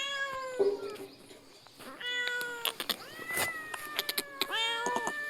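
Domestic cat yowling in anger, a sign that it is upset: about four long, drawn-out calls, each holding a fairly steady pitch and sagging slightly at the end, with the longest in the middle.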